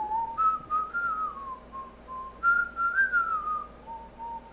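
A person whistling a short, wandering tune of held notes and small slides.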